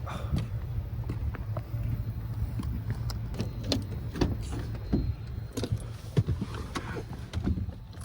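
Car driving, with a steady low rumble of engine and road noise inside the cabin and scattered small clicks and knocks throughout.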